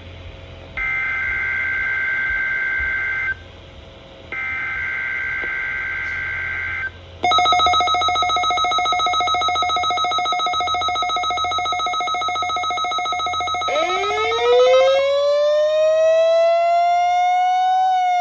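Two harsh, screechy two-tone data bursts of an Emergency Alert System SAME header for a Required Weekly Test on NOAA Weather Radio KIH48, each about two and a half seconds long with a short gap between them. About seven seconds in, a loud buzzy alarm tone starts with an even throb. Near the end, a siren-like tone sweeps up in pitch and begins to fall.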